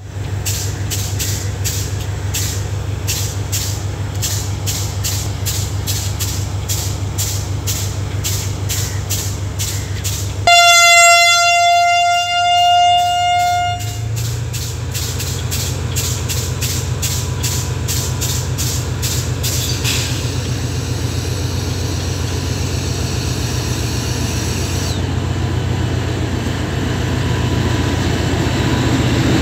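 Class S13 diesel-electric power car running with a steady low engine hum, then sounding one long horn blast about ten seconds in. After the horn its engine note strengthens as the train pulls away. A regular clicking, about two or three a second, runs through the first two-thirds and then stops.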